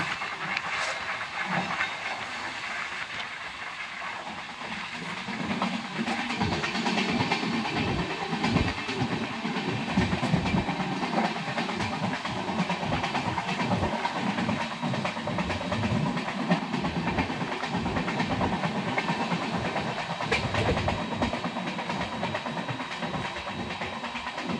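Passenger express coach running at speed, heard at an open doorway: wheels clattering over the rail joints over a steady rush of air, getting a little louder about five seconds in.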